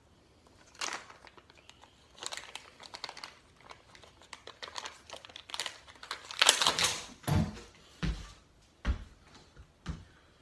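Plastic packaging crinkling and tearing as it is unwrapped by hand, followed near the end by four sharp thumps.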